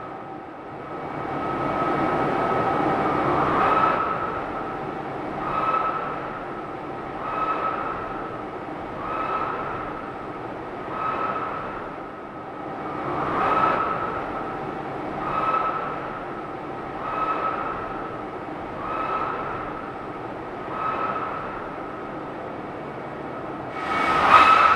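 AR MAX1 axial-flow main air compressor running into surge: a steady whine with a rhythmic rushing swell repeating about every two seconds as the airflow through the machine breaks down and recovers.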